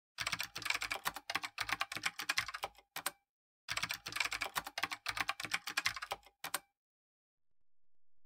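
Rapid computer keyboard typing, in two runs of about three seconds each with a short break between, as text is typed onto a title card.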